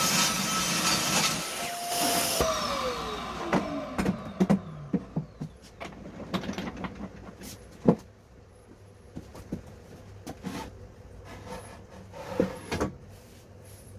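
Woodworking power tool running, then switched off, its motor whine falling in pitch as it winds down about two seconds in. Scattered knocks and clicks of wood being handled follow, the loudest near the middle and near the end.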